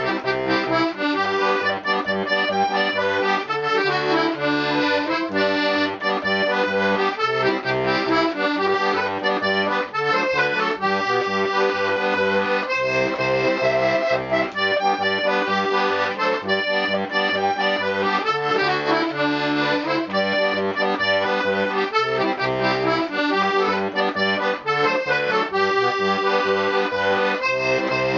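Two-row diatonic button accordion (melodeon) playing an old-time American tune, the melody carried over a steady pulsing bass accompaniment.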